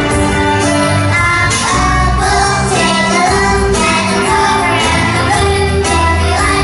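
Pop song playing loud with a steady beat, with singing over it.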